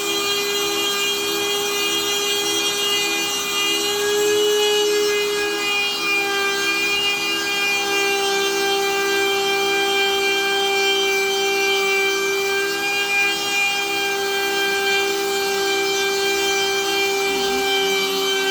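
Spindle of a homemade CNC router running at speed while its bit mills OSB board: a steady whine with a faint regular pulsing, a little over two beats a second.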